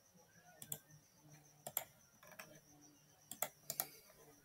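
Faint clicks of a computer mouse and keyboard: about eight short clicks, some in quick pairs.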